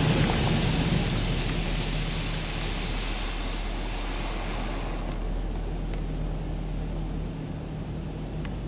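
High-pressure water spray from a Belanger Kondor KL2 touchless car wash arm hitting the car's windshield and body, heard muffled through the cabin. The spray hiss fades and mostly stops about five seconds in, leaving a steady low hum.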